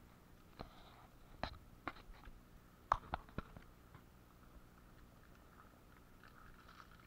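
A young tame jackdaw pecking and tapping at gear on a wooden bench: a handful of sharp taps and knocks in the first few seconds, the loudest about three seconds in.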